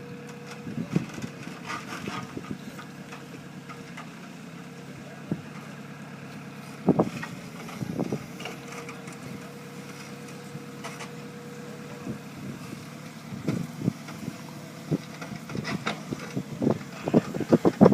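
An engine running steadily, with scattered knocks that come thicker near the end.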